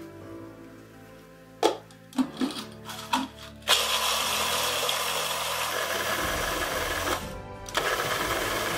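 Electric mini chopper grinding biscuits into crumbs. A few plastic clicks and clatters as the lid goes on, then the motor runs for about three and a half seconds, stops briefly, and runs again near the end.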